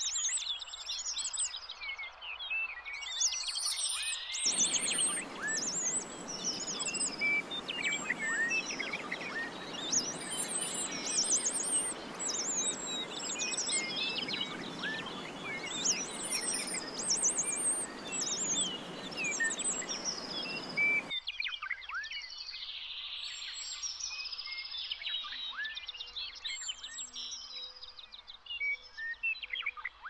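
Forest ambience full of high, quick chirping calls, over a steady rushing noise that starts a few seconds in and cuts off abruptly about two-thirds of the way through.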